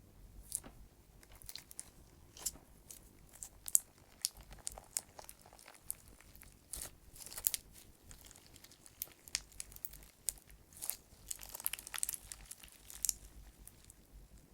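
Clear slime packed with small flower-shaped clay chips being squeezed and worked by hand: a dense, irregular crackling of small sharp pops from trapped air bubbles mixed with the gritty rubbing of the chips.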